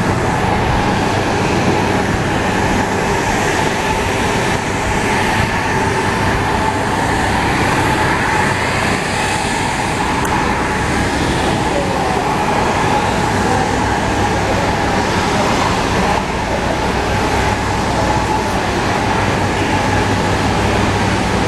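Wheeled suitcases rolling over pavement and then a tiled terminal floor, a steady rumbling clatter of small wheels amid a crowd of passengers walking.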